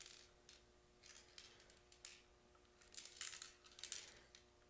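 Faint, scattered clicks and light rattles of a Cubix Tube maze puzzle's small plastic parts and balls being handled, a few irregular clicks a second in short clusters.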